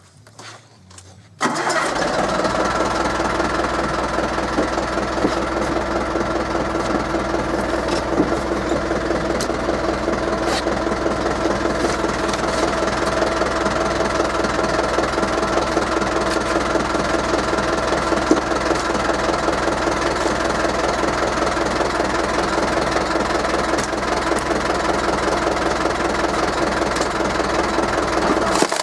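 Forklift engine running steadily at a constant speed, powering the hydraulics of a log splitter mounted on its forks. It comes in abruptly about a second and a half in and holds an even, unchanging drone.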